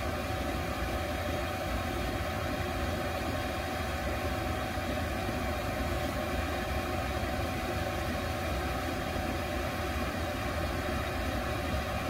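Chinese diesel air heater running steadily, set to full output: a constant whir from its fan and burner with a faint steady tone.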